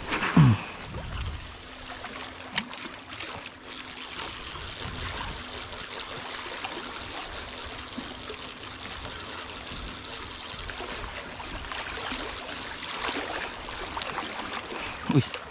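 Steady wash of sea water trickling and lapping over shore rocks, with a few faint clicks. A short, loud falling sound comes about half a second in and again near the end.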